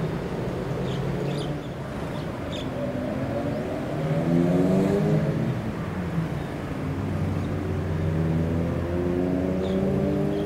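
Motor engines running with a steady low hum, while engine notes rise in pitch twice as they accelerate.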